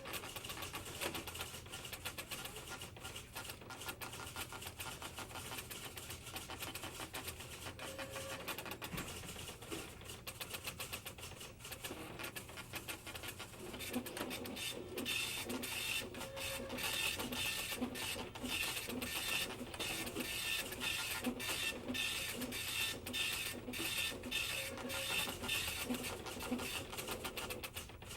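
Newsroom teletype machines clattering: a dense, rapid mechanical chatter of printing keys. About halfway through, a heavier rhythmic clacking joins in at roughly one and a half strokes a second.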